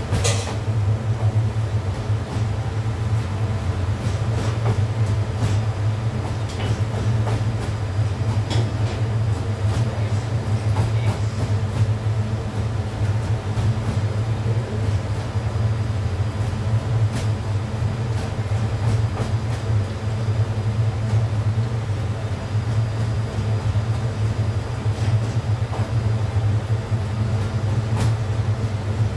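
Steady low rumble of the gas burner under a large pot of stir-fried spaghetti, with scattered small pops and crackles from the food cooking in it.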